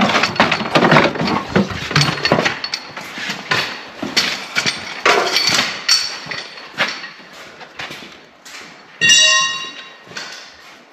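Knocking and clattering of parts and tools being handled, with a short ringing tone about nine seconds in.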